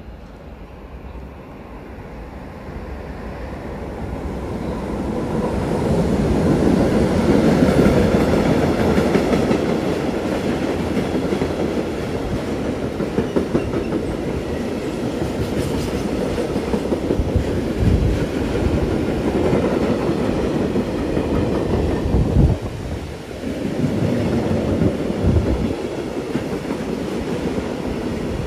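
Freight train passing: its noise builds over the first several seconds as the electric locomotive approaches. A long string of covered freight wagons then rolls by with a steady rumble and wheel clatter, with occasional heavier thumps from the wheels.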